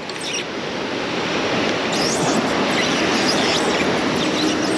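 Ocean surf breaking on rocks below, a steady rush of noise, with a few short, faint high chirps.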